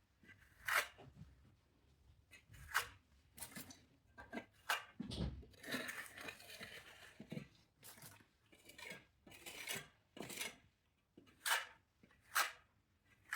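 Small steel plastering trowel scraping over damp bonding-coat plaster in about a dozen short, uneven strokes as the filled chase is smoothed with water.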